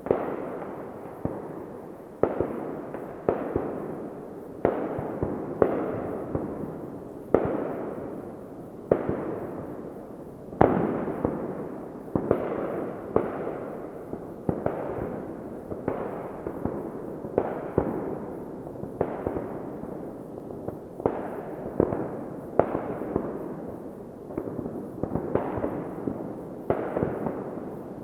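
New Year's Eve fireworks going off continuously: sharp bangs every second or so, each followed by a long rolling echo that fades, overlapping into a steady crackle and rumble.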